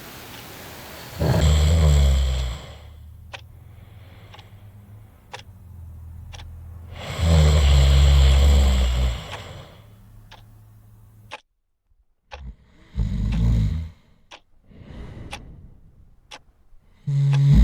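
Loud snoring, four long snores several seconds apart, with a clock ticking about once a second between them.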